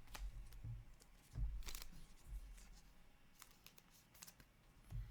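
Trading cards being handled and flicked through: a few short, crisp rustles and card clicks, with a soft low thump about a second and a half in.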